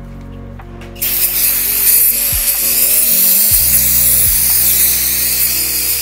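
A small high-speed power tool starts running about a second in, a loud, steady, high-pitched whirring hiss, over background music.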